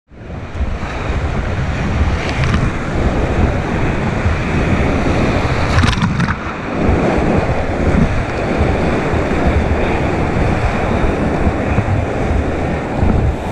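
Rushing whitewater of a river rapid heard close up from the front of a packraft, a steady loud churn with wind on the microphone. About six seconds in, a wave breaks over the camera with a brief splash.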